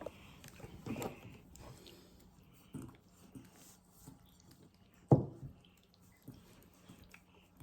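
Glue slime being kneaded and squished by hand, making scattered wet, sticky clicks and squelches, with one sharper slap about five seconds in.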